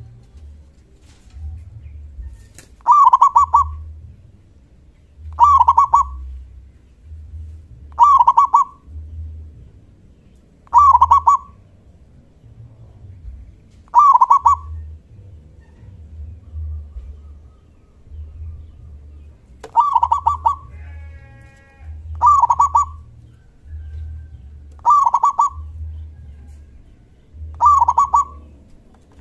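Zebra dove (perkutut) singing its loud call, each phrase under a second long and ending in a deep "kung". The call repeats every two and a half to three seconds, nine times, with a pause of a few seconds midway.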